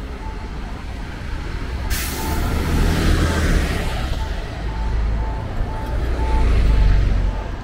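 A city bus's air brakes release with a sudden loud hiss about two seconds in, then its engine rumbles as it moves off, loudest near the end. A pedestrian crossing signal beeps steadily, about two beeps a second.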